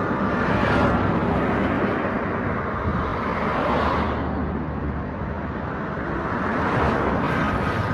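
Road traffic: motor vehicle engines running, with vehicles passing close by about a second in, near four seconds and again around seven seconds.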